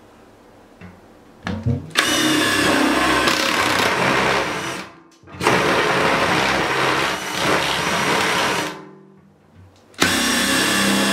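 Electric drill with a step bit boring through a plastic bucket lid, running in three bursts: it starts about two seconds in, winds down near five seconds, runs again, winds down near nine seconds and starts again sharply about ten seconds in.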